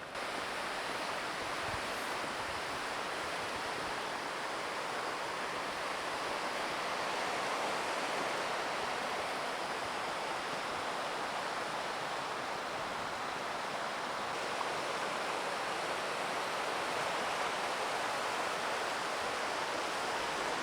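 Large waterfall rushing: a steady, unbroken wash of falling-water noise that grows slightly louder about six seconds in.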